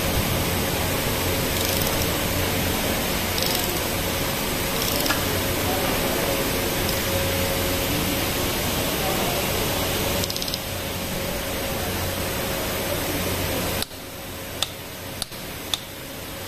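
Steady background noise with a faint steady hum, dropping in level a little over two-thirds of the way through. Near the end come three sharp clicks from a socket ratchet tightening a fuel injector hold-down on a diesel cylinder head.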